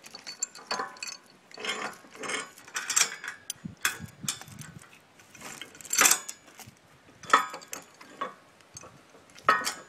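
Steel log chain rattling and clinking against the steel hook and frame of a four-wheeler log skidder as it is wrapped around a log and set short in the hook. The clinks come irregularly, the loudest about six seconds in and again near the end.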